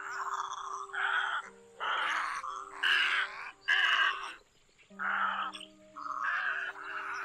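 Egrets giving harsh, raspy croaking calls, about eight in a row at roughly one a second, each under a second long. Background music with held low notes plays underneath.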